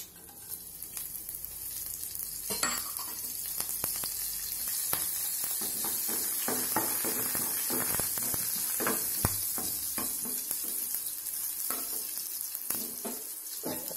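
Chopped green chillies sizzling in hot oil with tempering seeds in a kadai, crackling and spitting as they are stirred with a wooden spatula. The sizzle swells over the first couple of seconds, then holds steady.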